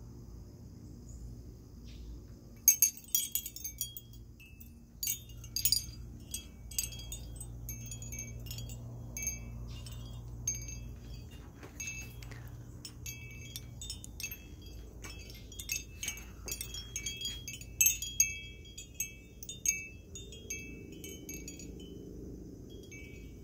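Glass wind chime with hanging glass rings, discs and beads on copper wire, the glass pieces striking each other in irregular clusters of bright, high, ringing clinks. The clinking starts about two and a half seconds in and comes and goes in bursts.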